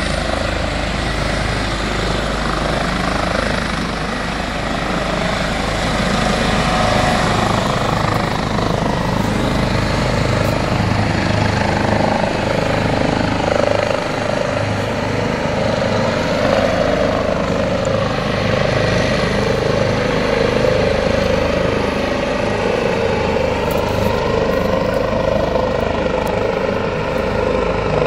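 ADAC Eurocopter rescue helicopter flying low overhead, its rotor and turbines running steadily, getting somewhat louder about six seconds in.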